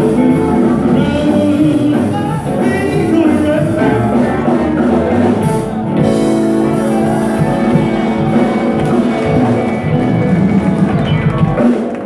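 Live band playing an upbeat number on electric guitars, keyboard and drum kit, with a steady dance beat.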